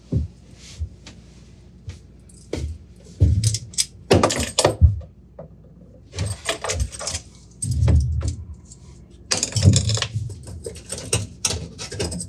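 Hand tools and metal plumbing fittings clinking and rattling as they are handled, with scattered knocks and thumps against the sink cabinet.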